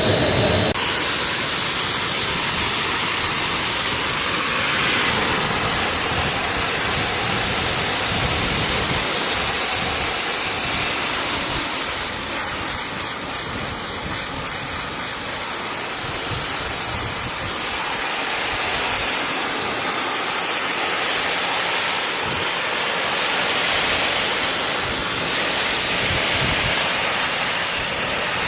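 Pressure washer spraying water, a loud steady hiss with a brief stretch of rapid pulsing about halfway through.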